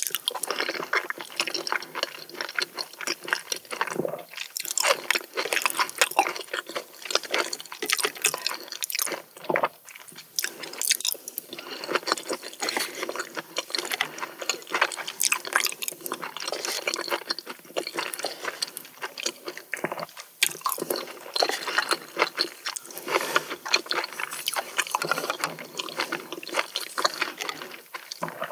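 Close-miked wet chewing of raw oysters: a continuous run of small, irregular moist clicks and smacks.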